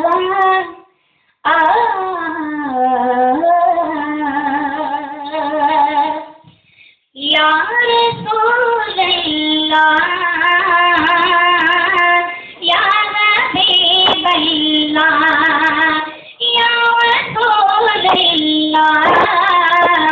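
A boy reciting an Urdu naat, singing solo into a microphone with long, wavering held notes. He breaks off briefly about a second in and again about six seconds in.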